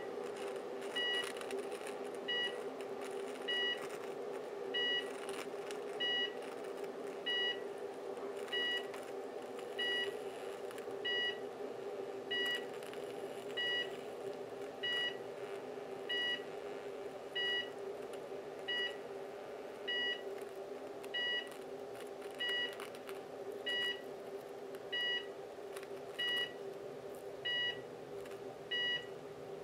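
Cooker switch arcing and burning under high voltage from two microwave oven transformers in series: a steady electric buzz with faint crackles. A short electronic beep repeats about every 1.3 seconds.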